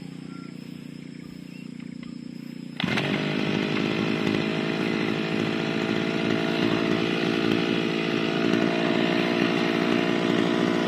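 Small engine of a push lawn mower being restarted after stalling: a quieter steady hum for the first few seconds, then about three seconds in it suddenly comes up loud and runs steadily.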